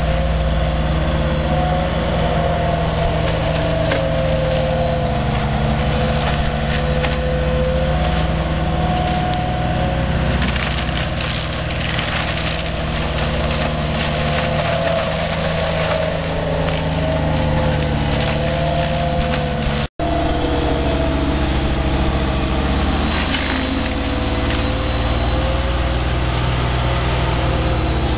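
Brush mulcher's engine running steadily under load while its head chews through blackberry canes, with continuous crackling and splintering of woody stems. The sound drops out for an instant once, about two-thirds of the way through.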